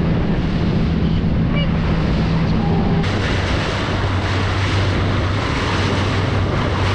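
Yamaha 200 outboard motor running steadily under way, with wind buffeting the microphone and water rushing past the hull. About three seconds in, the engine note drops to a lower, deeper drone.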